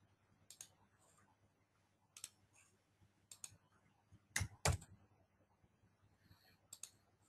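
Faint clicks of a computer mouse and keys, coming in small pairs every second or two, the loudest pair about four and a half seconds in.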